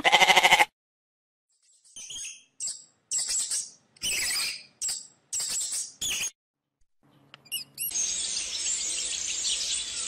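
A goat gives one short, wavering bleat. Then comes a run of short, high squeaks, typical of a hamster. From about eight seconds in, birds chirp densely and continuously.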